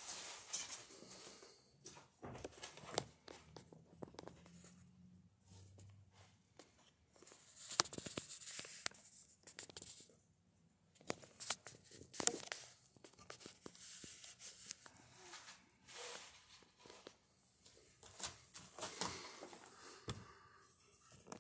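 Stiff sailcloth rustling and crinkling in irregular bursts, with small clicks, as it is handled and pressed down along a glued seam.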